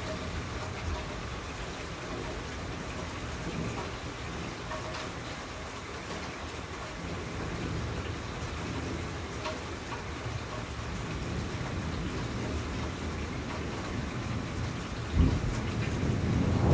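Steady rain with scattered drop ticks and a low rumble of thunder underneath. Near the end a sudden loud clap of thunder starts and rolls on.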